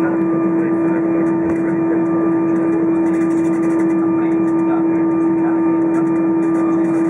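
Cabin noise of an Airbus A320 taxiing on the ground after landing: a steady hum with one strong, constant low tone and fainter higher tones over an even rushing noise.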